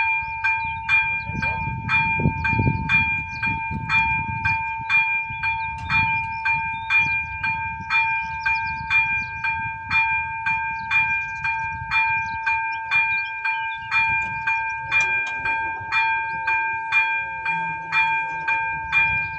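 Czech level-crossing warning bell, an electronic ZV-02 unit, ringing in rapid, evenly spaced strikes about twice a second while the crossing is closed for an approaching train.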